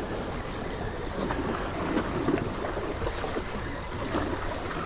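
Riverside ambience: a steady wash of river water lapping against jetty rocks, mixed with wind.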